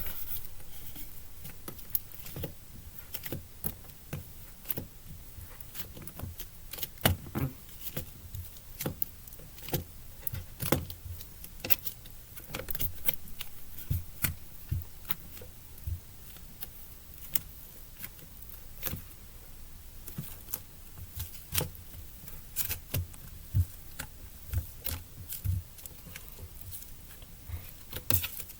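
Butter slime being squished and pressed by hand, giving irregular sharp clicks and small pops every second or so.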